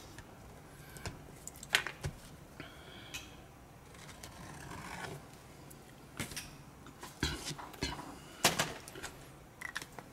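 Light clicks, taps and rubbing of small hand tools and heavy card being handled on a workbench: a few sharp clicks near the start and a cluster of them in the second half.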